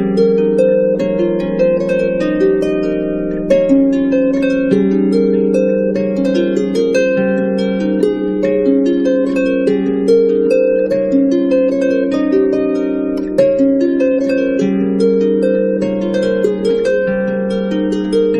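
Background music played on harp: a continuous stream of plucked notes.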